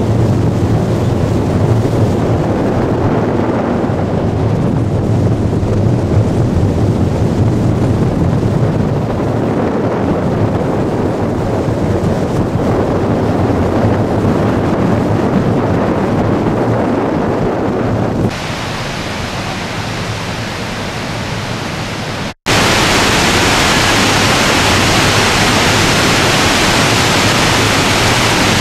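A small boat's motor running steadily, with river water rushing along the hull. After a brief drop-out about 22 seconds in, this gives way to the steady roar of Victoria Falls plunging over its basalt edge.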